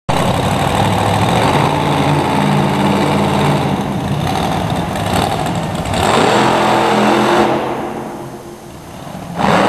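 Monster truck's engine running loud and revving hard for most of the clip, easing off near the end, then surging loud again just before it ends.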